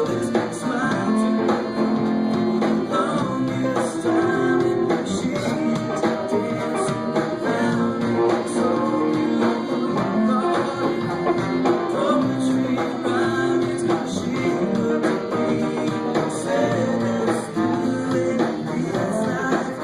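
A live band playing an instrumental passage, guitar to the fore, with a steady beat.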